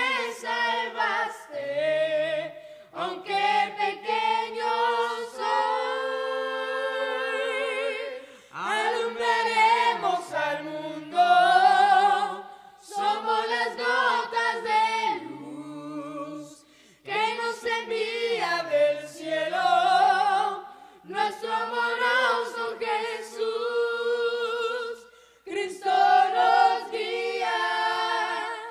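Boys' vocal group singing a Spanish-language Christian worship song a cappella in several-part harmony, with no instruments. The voices carry vibrato and hold long chords between phrases.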